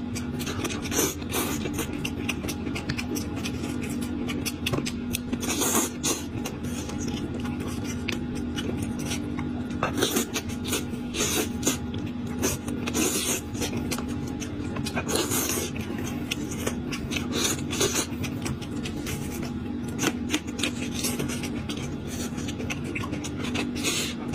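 Close-miked eating sounds: a person sucking and chewing meat off bony pieces coated in chili-oil sauce. Wet smacks and clicks run continuously, with a loud slurp every second or few.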